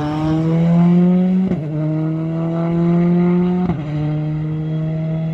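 Rally car engine under hard acceleration, its pitch climbing steadily and dropping sharply at each upshift, about one and a half and about three and a half seconds in.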